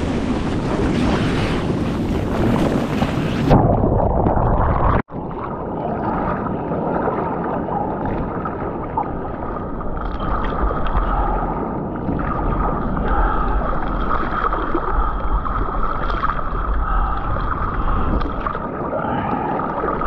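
Surf and rushing water picked up by a GoPro in its waterproof housing. Open wind and wave noise for the first few seconds, then it turns suddenly muffled and dull, with a short dropout soon after, and a steady water rush continues.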